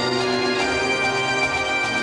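Bagpipe music: a slow melody of long held notes over a steady drone.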